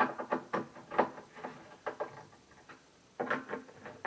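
Irregular light clicks and knocks of flat-pack cabinet parts being handled and fitted together, with a cluster about three seconds in.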